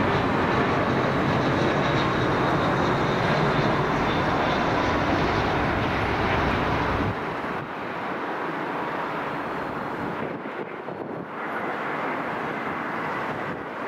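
Jet airliner on final approach passing close by: a loud, even rush of engine noise with a faint high whine. About halfway through it drops off sharply, leaving a quieter, windy hiss.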